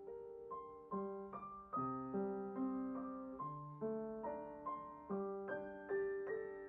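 Slow, gentle solo piano music: single notes and chords struck every half second or so, each ringing out and fading.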